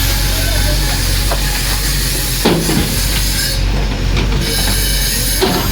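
JCB 3DX backhoe loader's diesel engine running steadily while the machine works, with a strong hiss over it and two metallic clanks, one about halfway through and one near the end.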